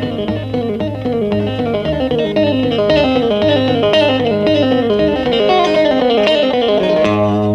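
Background music: guitar playing quick descending runs of notes over a steady bass line.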